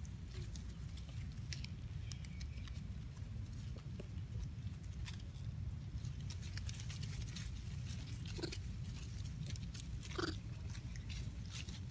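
Long-tailed macaques moving about in leaf litter: scattered rustles and clicks, with two short monkey calls about eight and ten seconds in, over a steady low rumble.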